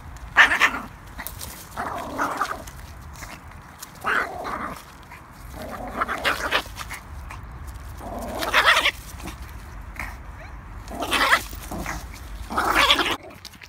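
Yorkshire terrier making a string of strange, short vocal noises as it bites and tugs at a stick: about seven bursts, one every second or two.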